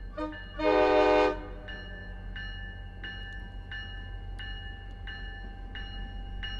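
Approaching diesel locomotive sounding its multi-tone horn: a short toot, then a longer blast. After that a bell dings steadily, about three strikes every two seconds, over the low rumble of the train.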